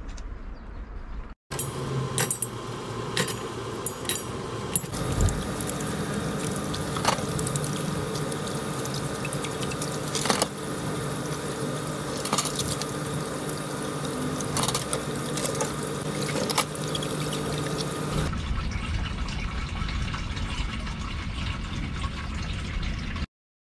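Water running from a caravan sink tap while dishes are washed, with frequent clinks of dishes and utensils and a steady hum underneath. About 18 seconds in this gives way to a smoother rush of grey water pouring from the caravan's drain outlet into a plastic waste-water tank.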